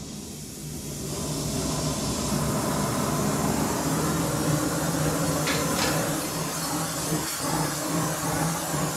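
Oxy-fuel torch flame hissing steadily as it heats an aluminum fixture, building up over the first second or so.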